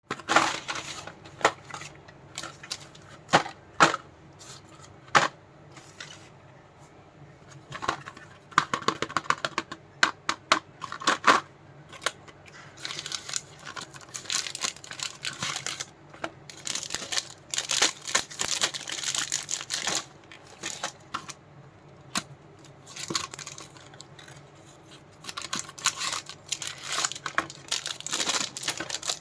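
Chocolate and candy wrappers being handled, crinkled and torn open, with sharp taps and clicks in the first few seconds and longer stretches of crinkling later.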